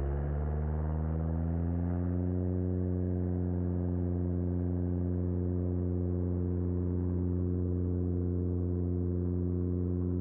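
Decathlon light aircraft's engine and propeller droning at takeoff power during the climb-out, heard in the cockpit. Its pitch rises slightly over the first couple of seconds, then holds steady.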